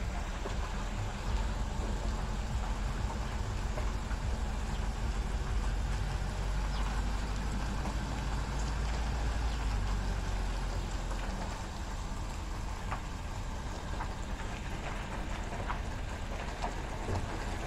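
Car driving slowly: steady low road rumble with a hiss of wind and tyre noise, and a few faint clicks.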